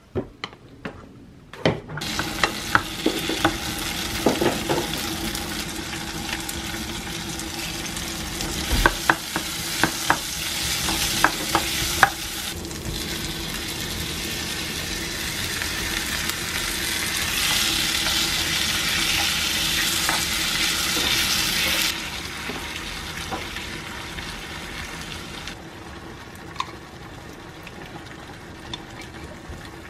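Chopped red peppers and tomatoes sizzling in oil in a frying pan, with the clicks and scrapes of a wooden spatula stirring them. The sizzle starts suddenly, swells towards the middle, drops abruptly about two-thirds of the way through and settles to a softer sizzle.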